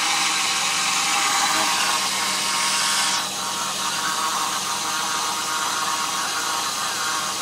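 BMW E34 engine running in the engine bay, with a loud hiss over the steady engine sound that drops away suddenly about three seconds in.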